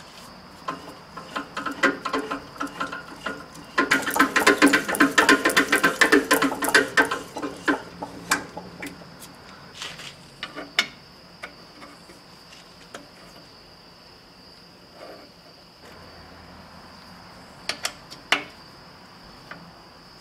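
Tapping a thread by hand into a cast iron valve body with a tap held in the drill press chuck: rapid metallic ratcheting clicks. A few clicks come first, then a dense run about four seconds in that lasts around four seconds, with scattered single clicks of metal parts being handled afterwards.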